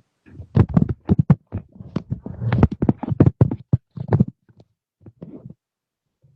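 A rapid, irregular run of knocks and taps, dense for about four seconds, then a few sparser ones.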